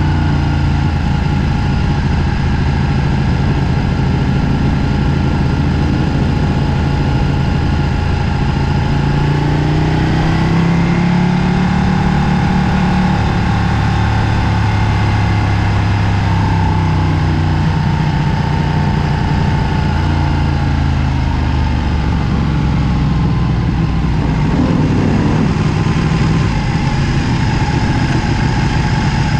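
Ducati Panigale 1299 S's 1285 cc V-twin engine running at low, fairly even revs on board the bike. The note climbs a little about a third of the way in, then eases back down.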